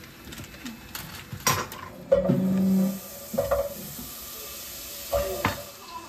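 Kitchen knife clicking and knocking against a wooden chopping board and butter wrapper, a few separate sharp knocks, with a brief low hum about two seconds in.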